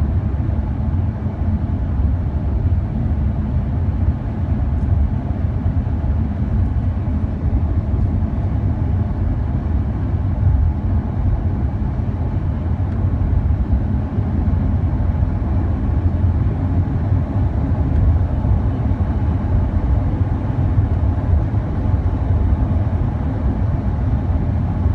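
Lamborghini Huracán's V10 and road noise heard inside the cabin while driving along: a steady low rumble with no revving.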